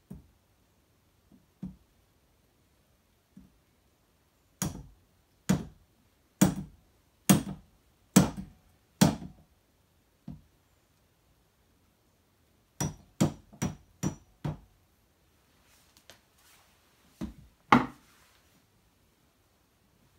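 Mallet blows on a homemade socket-and-bolt press tool, driving a star nut down into a bike fork's steerer tube. A few light taps come first, then six heavy knocks about one a second, a quicker run of five, and two last blows near the end, some with a brief metallic ring.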